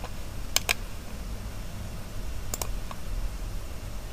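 Computer mouse clicks: a quick pair about half a second in and another pair about two and a half seconds in, over a steady low hum.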